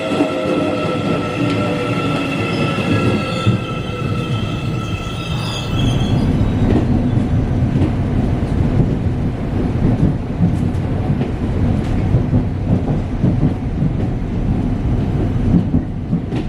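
Electric commuter train: a high squeal with a slowly falling whine for about the first six seconds, then a steady low rumble.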